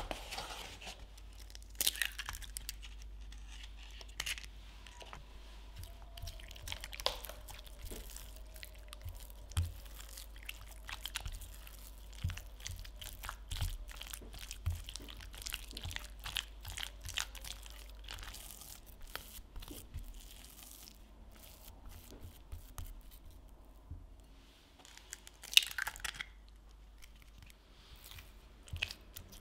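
Silicone spatula working choux pastry dough with egg in a glass bowl: irregular wet, sticky slapping and smacking as the dough is folded. Near the end there is one sharp crack as another egg is broken in.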